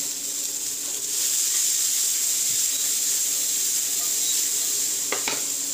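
Diced bell peppers frying in a stainless steel pan, a steady sizzle that grows louder about a second in.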